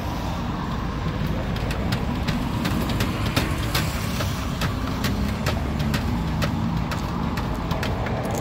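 Block of queso de bola (Edam-style ball cheese) rubbed down a metal box grater in quick strokes, a short rasp about three times a second, over a steady low rumble of street traffic.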